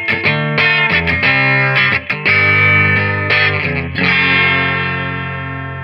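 Telecaster-style electric guitar on its bridge pickup, played through a Harley Benton American Sound amp-simulator pedal set with a touch of drive into a Peavey Valve King VK112's clean channel: a run of picked and strummed chords, then a last chord left to ring and fade from about four seconds in. The tone is snappy with slight distortion.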